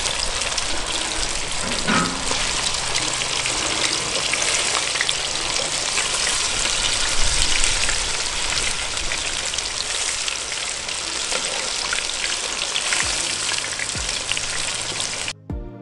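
Battered pheasant tenders deep-frying in hot oil in a Dutch oven, a dense, steady sizzle that cuts off abruptly near the end.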